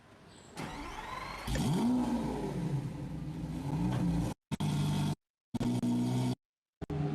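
Lamborghini sports car engine revving: it builds from faint, the revs climb sharply about a second and a half in, then it runs on at high revs. Near the end the sound cuts off abruptly three times for brief moments.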